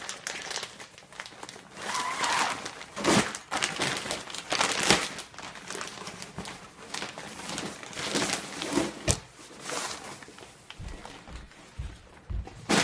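Thin nylon garment bag crinkling and rustling as it is handled and opened around a suit, in irregular rushes, with a few low knocks near the end.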